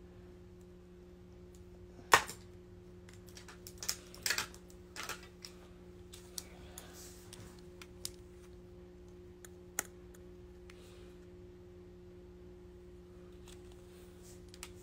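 Scattered clicks and taps of handling noise close to the microphone, with one sharp click about two seconds in and a quick run of taps around four to five seconds, over a steady low hum.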